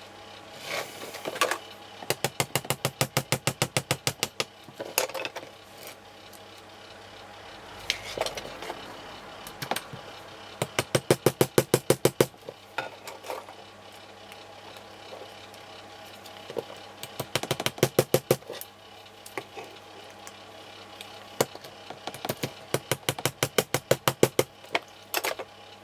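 Small metal file working a titanium watch-bracelet clasp in quick back-and-forth strokes, about eight a second, in four short runs with a few single clicks between them: the clasp being filed down so that it fits.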